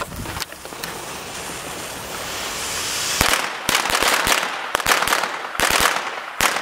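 A lit fuse fizzing with a growing hiss, then a string of small firecrackers going off about three seconds in: a rapid, irregular run of loud cracks lasting around three seconds.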